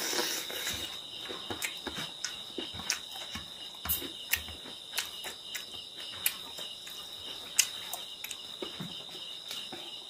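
Close-up eating sounds: irregular wet lip smacks and chewing clicks as food is picked off a plate by hand and eaten. Under them runs a steady high insect chirring.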